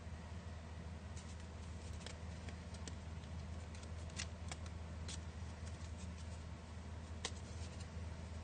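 Folded paper crabs handled in the fingers: soft scattered crinkles and ticks of the paper, over a steady low hum.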